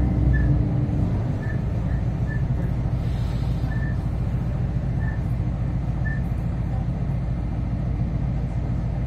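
Inside a 3000-class diesel-electric railcar running between stations: a steady drone from the underfloor diesel and the running gear. The heavier engine hum eases about a second in, and a few faint short squeaks come through over the drone.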